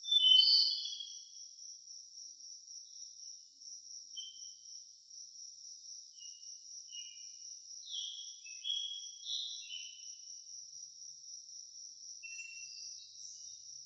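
Forest ambience: a steady high-pitched insect trill, with short bird chirps over it. A loud burst of chirps comes right at the start and another cluster about eight to ten seconds in.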